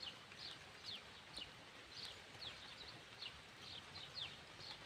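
A small bird calling faintly and repeatedly: short, high notes that slide downward, about two or three a second.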